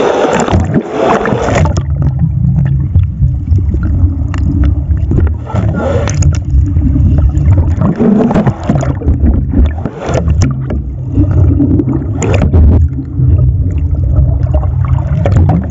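Sea water sloshing and gurgling around a camera held at and below the surface against a fishing boat's hull. About two seconds in, the sound turns muffled and low as the camera goes under, with a steady low rumble and occasional splashes as it breaks the surface.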